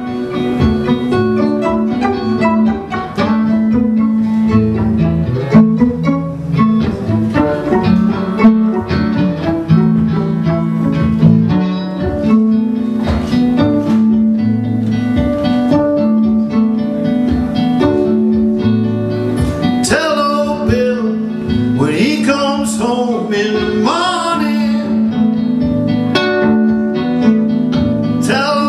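Resonator guitar and fiddle playing an instrumental break of a blues song, over a steady repeated bass note.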